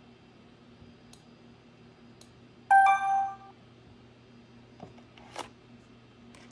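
Clover card terminal sounding a loud electronic beep, about 0.8 s long, nearly three seconds in: the alert telling the customer to remove the chip card. Near the end comes a short scrape as the card is pulled from the reader slot, with a few faint clicks.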